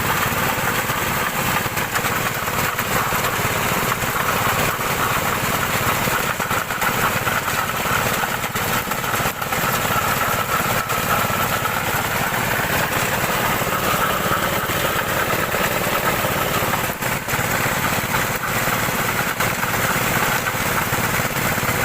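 Small engine of a borewell-drilling machine running steadily under load, with no change in pace.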